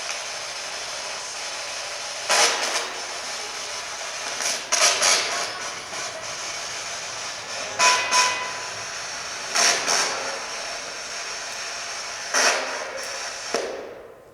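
A steady hiss with half a dozen short creaking noises spread about two seconds apart, and a brief tone near the middle. Everything cuts off just before the end. The noises are typical of old doors moved by the wind, which is what the investigator takes them for.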